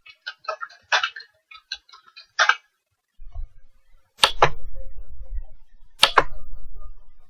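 Computer keyboard keys tapped a few times, as when typing a password, then two louder clicks about two seconds apart, each a quick double click like a mouse button pressed and released, with a low hum after each.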